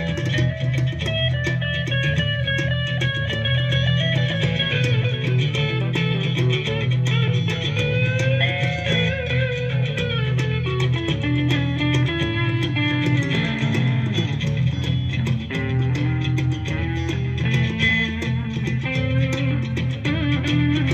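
Live band playing an instrumental passage: guitar lines with some bent notes over a steady bass guitar.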